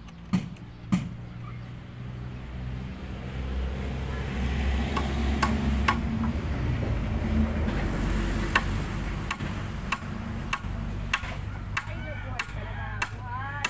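Sharp hammer knocks on timber, one every second or so, as wooden formwork for a concrete column is nailed up. Midway a motor vehicle passes, its rumble rising and then fading.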